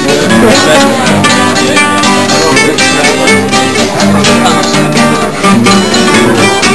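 Acoustic guitar strummed in a steady rhythm: a chordal instrumental passage with no singing.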